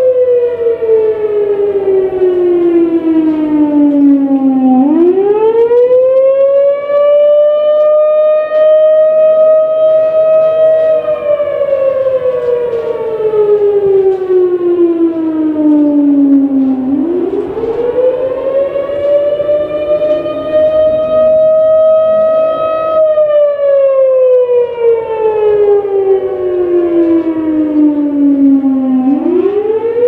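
Federal Signal Thunderbolt 1000 outdoor warning siren sounding its wail during a test. The pitch climbs quickly, holds high for several seconds, then falls slowly, in cycles of about twelve seconds.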